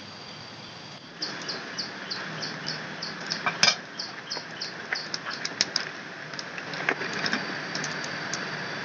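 A rapid, even series of short high chirps, about four a second, over a steady background hiss. Scattered sharp clicks run through it, the loudest about three and a half seconds in, as chilies and a clay bowl are handled on a woven bamboo tray.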